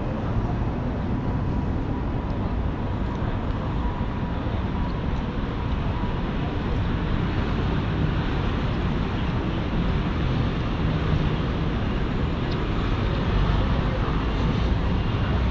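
Steady outdoor city background noise: a low rumble of distant traffic with an even hiss, and no distinct events.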